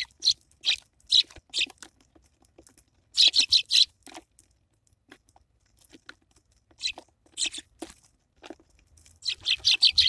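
A flock of Eurasian tree sparrows chirping in quick runs, densest about three seconds in and again near the end, with sharp taps and crunches as they peck seeds on a wooden feeder tray.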